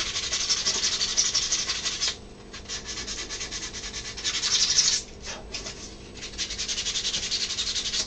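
Hand sanding: sandpaper rubbed back and forth in quick strokes over a putty-filled seam on a 3D-printed plastic part, smoothing the filler ridge flush. The scratchy strokes come in three spells, easing off about two seconds in and again about five seconds in.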